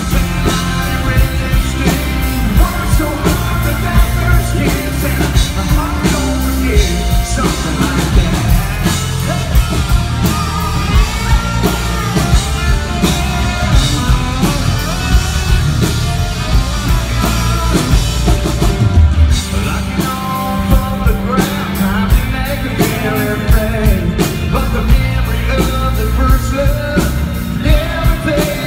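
Live band playing a rock-leaning country-pop song: electric guitars, a steady drum beat and a male lead vocal, heard from the audience. The drums drop out briefly about two-thirds of the way through, over a held bass note.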